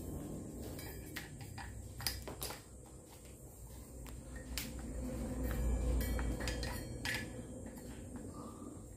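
Scattered metallic clicks and light knocks as a 5-inch hole saw is handled and fitted onto a power drill's spindle, with a low handling rumble that swells about halfway through. The drill is not running.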